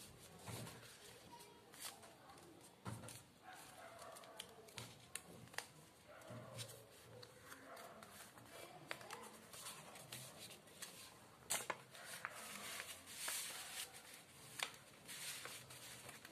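Sheet of origami paper being folded and creased by hand: faint rustling and crinkling with scattered sharp crackles, the loudest about two-thirds of the way through.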